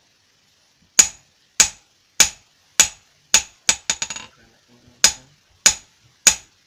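Hammer beating a metal blade on a small post anvil: sharp, ringing metal blows about every 0.6 s starting about a second in, a quick run of lighter taps around the middle, then a short pause and three more blows.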